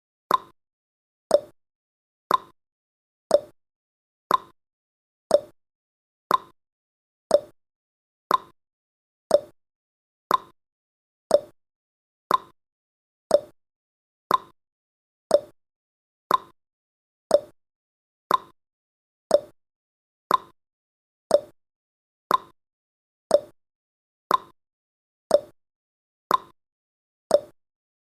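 Countdown timer tick sound effect: one short, sharp tick every second, evenly spaced.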